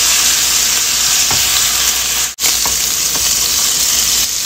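Sliced skirt steak sizzling steadily in hot oil in a nonstick wok, with a few light ticks of the plastic spatula against the pan as the meat is scooped out. The sizzle drops out for a moment just past halfway.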